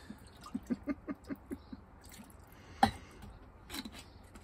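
Tequila glugging out of a bottle into a steel cocktail shaker, a quick run of gurgles about five a second, followed about three seconds in by one sharp knock, and the bottle's cap being screwed back on near the end.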